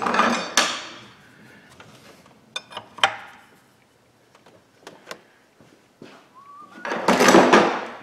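Metal hand tools being picked up and handled: a rustling, scraping burst at the start, a few sharp clinks about three seconds in, and another scraping burst near the end.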